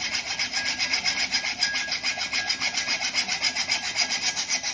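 Hacksaw cutting a bicycle part with fast, even back-and-forth strokes, several a second, steady throughout: a hand saw used instead of a pipe cutter so the tube end does not mushroom.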